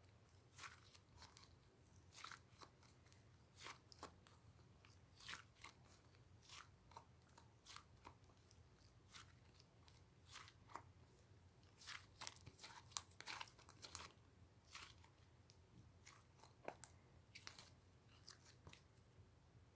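Faint, irregular crunching and crackling: short crisp snaps coming unevenly, about one or two a second, a few a little louder.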